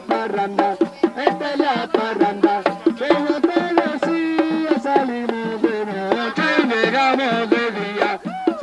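Puerto Rican plena: several panderetas (hand frame drums) struck in a fast, steady rhythm, with voices singing over them.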